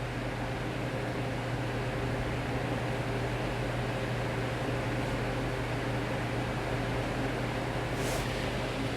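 Steady low hum with a faint hiss, from machinery or electronics running in the room. A brief faint click comes near the end.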